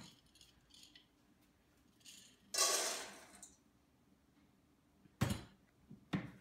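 Dry dog food being scooped and poured into a bowl: a rattling rush of kibble lasting about a second, a couple of seconds in, then a few sharp clinks and knocks of the scoop and bowl near the end.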